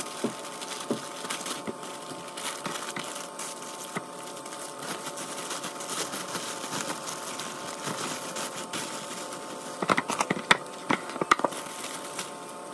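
Plastic bread bags crinkling and rustling as bread is handled and packed into them, with a few sharper, louder crackles about ten seconds in.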